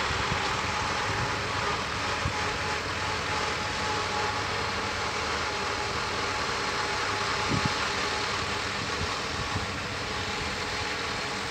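KATO hydraulic excavator's diesel engine idling steadily, an even hum with faint steady tones and no changes in load.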